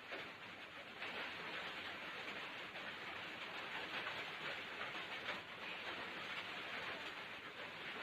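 Strong storm wind rushing steadily, a dense hiss that swells a little about a second in.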